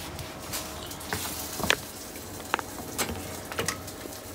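Handling noise from a plastic-wrapped tray of instant rice: about half a dozen light clicks and crinkles, scattered over a few seconds.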